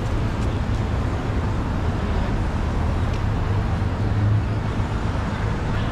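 Traffic noise on a busy city street, with a steady low hum of vehicle engines under the general street noise.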